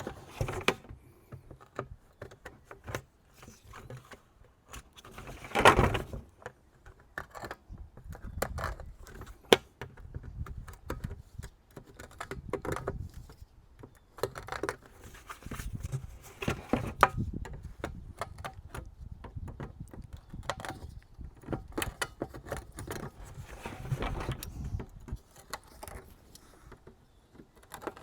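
Hand work on a plastic 5-gallon bucket: irregular clicks, scrapes and rattles as the burrs are cleaned from its freshly drilled holes and the bucket is handled, with a louder knock about six seconds in.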